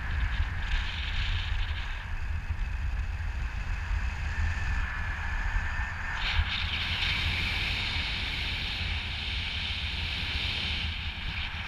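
Wind rushing over the camera microphone during a paraglider flight: a steady low buffeting rumble under a hiss. About six seconds in, a brighter, higher hiss comes in and stays until it fades near the end.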